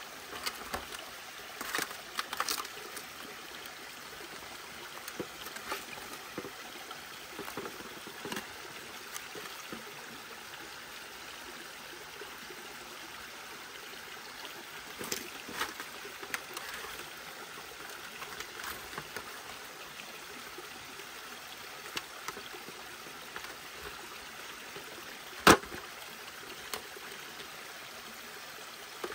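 Stream flowing steadily, with scattered small clicks and knocks over it and one loud, sharp knock near the end.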